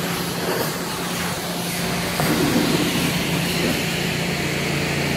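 Caterpillar 950H wheel loader's diesel engine idling steadily, a low even hum.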